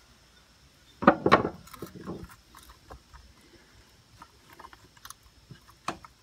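Light clicks and rattles of hands working wires and plastic connectors on a mower engine, with a sharp click near the end. A brief, loud vocal sound comes about a second in.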